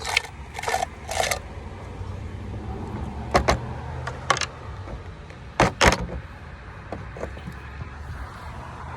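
Garbage disposal motor running with a steady low hum, turning freely again after being unjammed, with several sharp clicks and knocks, the loudest a pair about six seconds in.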